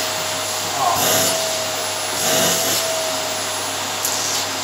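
Vacuum cleaner running on carpet: a steady motor whine over rushing air, swelling briefly about a second in and again around two and a half seconds.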